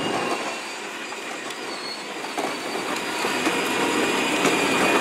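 Power Wheels ride-on toy cars driving on pavement: their hard plastic wheels make a steady rattling rumble that gets a little louder in the second half.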